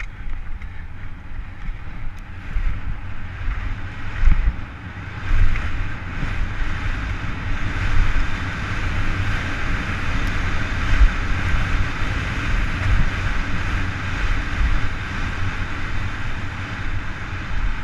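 Wind rushing over a helmet-mounted camera on a downhill mountain bike at speed, with the irregular rumble of the tyres on dry, loose gravel.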